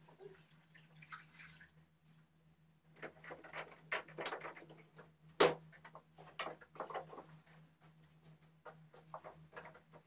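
Irregular clattering, knocking and splashing of hand-washing an air conditioner's indoor unit with a dipper of water, with one sharp knock about five and a half seconds in. A faint low hum runs underneath.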